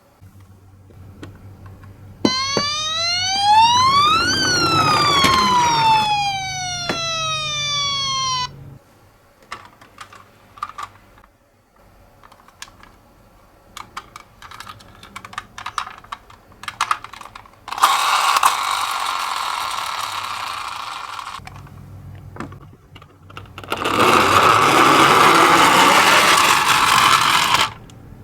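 Toy ambulance's electronic siren sounding one wail that rises and then falls. Scattered small clicks and knocks follow, then two stretches of rushing noise from the toy's wheels rolling down the slope, the second louder.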